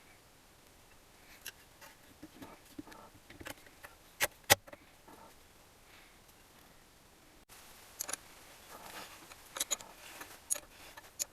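Scattered light clicks and taps of tools and small engine parts being handled during assembly, with two sharp clicks a moment apart about four seconds in.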